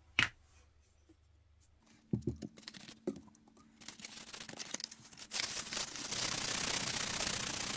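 Fine wet-and-dry sandpaper being rubbed by hand over a hardened JB Weld repair on a plastic housing, wet-sanding. A few handling knocks come first, then from about five seconds in the sanding strokes run together into a steady, dense scratching.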